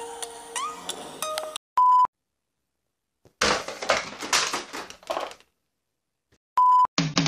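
Two short, identical, steady electronic beeps about five seconds apart. Between them comes about two seconds of crackling, rustling noise with silence either side, after a plucked tune that stops about a second and a half in.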